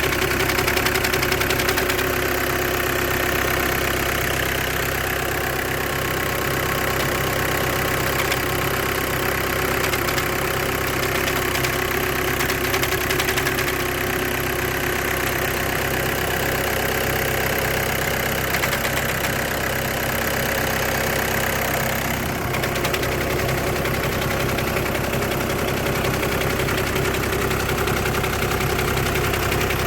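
Engine of a 2008–2014 Volkswagen with a DSG gearbox idling steadily, carrying the strange noise that is suspected to come from a vibrating clutch plate or its bearing.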